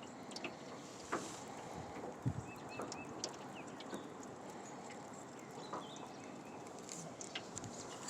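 Faint wind noise with scattered small clicks, and a small bird chirping three times, quickly, about two and a half seconds in.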